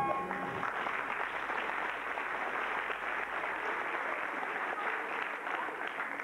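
Audience applauding steadily as a song ends, with the song's last notes fading in the first moment.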